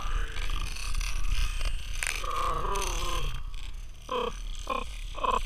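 Wordless grunts and exclamations from the angler as he fights the fish to the kayak: one drawn-out falling call about two seconds in, then a run of short calls about every half second near the end, over a low wind rumble.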